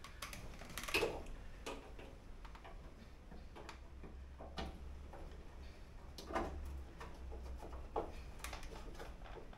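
Scattered light clicks and knocks from car door parts being handled by hand, the loudest about a second in, with others about six and a half and eight seconds in, over a faint low hum.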